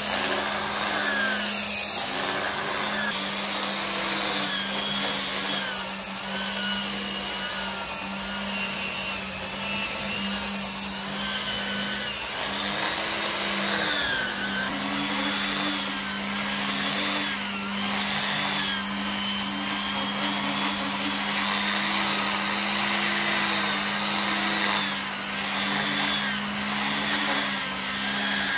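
Electric angle grinder fitted with a sanding disc, running continuously as it sands a solid wood tabletop. The motor's pitch dips and recovers again and again as the disc is pressed and swept across the wood, over a steady hiss of abrasive on wood.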